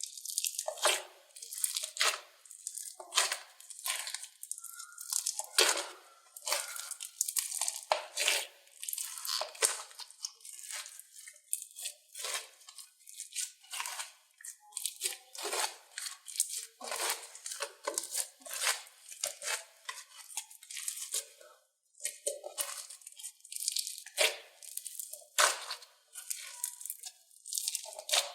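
Slime being worked by hand: a dense, irregular run of short, sharp noisy sounds, about one or two a second, with a brief pause about three quarters of the way through.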